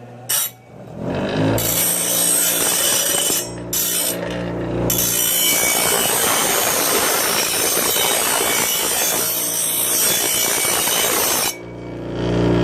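Bench grinder switched on and spinning up about a second in, then grinding the steel edge of a cut-down circular saw blade: a loud continuous grinding hiss with two brief breaks as the piece is lifted. Near the end the blade comes off the wheel, leaving the grinder motor humming.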